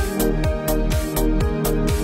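Electronic background music with a steady beat: a kick drum about twice a second and regular hi-hat ticks under held synth chords.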